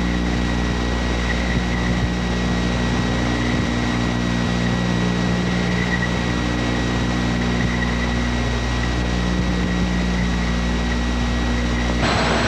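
Steady electrical hum with a faint high whine under constant hiss, the background noise of an old videotape soundtrack; no ball kicks stand out. Near the end the noise shifts abruptly and turns brighter.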